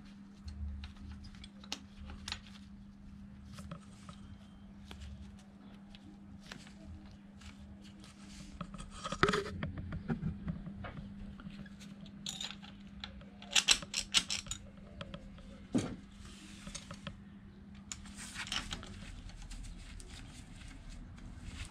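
Metal hand tools and small metal parts clinking, clicking and scraping on and off, in small clusters of sharp clicks, against a steady low hum.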